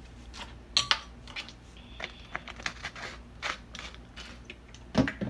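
Clicks and crackles of a plastic ReaLemon lemon-juice bottle being handled and squeezed as juice is poured over raw conch in a glass bowl, with sharp clicks about a second in and a thump near the end, the loudest sound.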